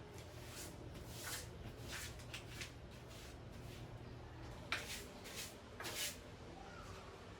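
Soft rustling and light handling noises, a dozen or so brief scuffs and taps, over a steady low hum.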